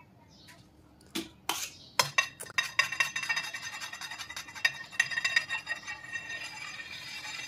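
A metal palette knife scraping and clicking against whipped cream and a metal cake turntable while icing is spread around the side of a cake. There are a few separate clicks at first, then a continuous run of scraping and clinking from about two seconds in.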